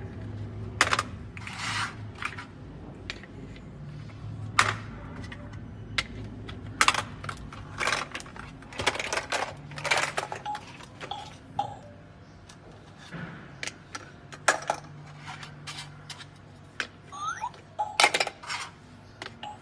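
Hard plastic shape blocks knocking and clicking against a plastic shape-sorter cube as they are handled and pushed into its holes: a string of irregular sharp clicks and knocks.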